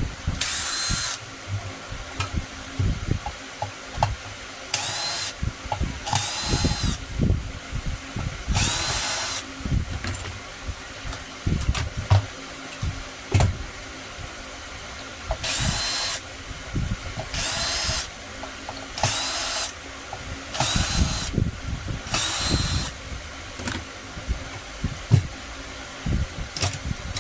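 Handheld power drill run in short bursts of about half a second to a second each, nine times, with a high whine at each burst and knocks and clatter of handling between them.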